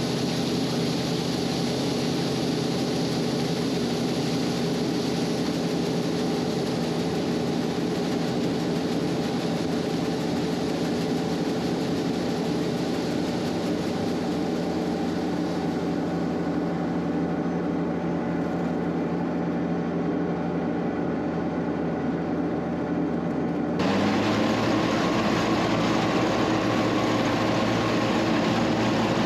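Combine running steadily while harvesting soybeans, a steady engine drone under a constant rush of machinery noise. About 24 seconds in, the sound switches abruptly to a slightly louder, brighter engine note.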